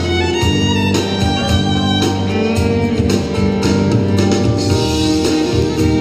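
Live Celtic–Native American fusion band music: fiddle over guitar, with a steady beat about twice a second.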